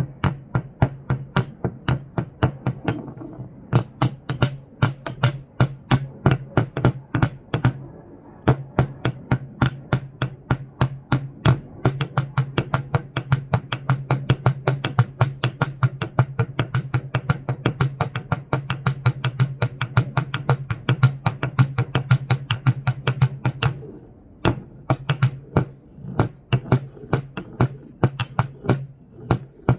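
Rapid, regular clicking, about four to five clicks a second, over a steady low electric hum that drops out briefly twice.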